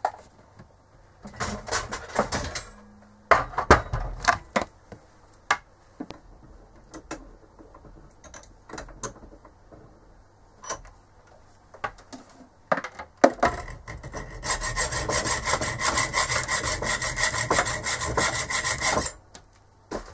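Handling noises from rummaging for test leads: scattered clicks and knocks of objects being picked up and set down, then about five seconds of rapid, steady scraping and rubbing from about 13 seconds in that stops suddenly.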